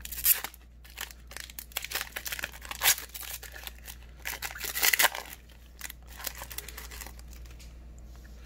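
Foil trading-card pack being torn open and crinkled in the hands, a dense run of sharp wrapper crackles with a few louder snaps. The crackling dies down to a soft rustle for the last couple of seconds.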